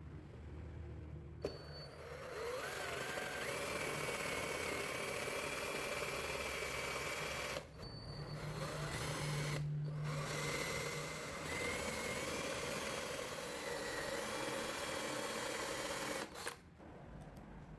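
An electric power tool's motor running steadily. It spins up with a rising whine about a second and a half in, dips briefly near the middle, and cuts off suddenly near the end.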